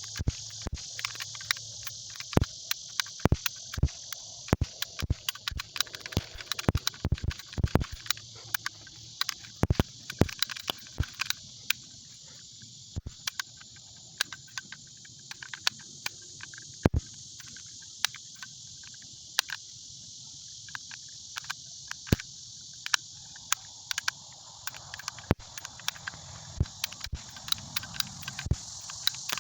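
Paper caps from a roll cap gun popping in a rapid, irregular string of sharp snaps, thinning out after about ten seconds. Crickets chirr steadily in the background.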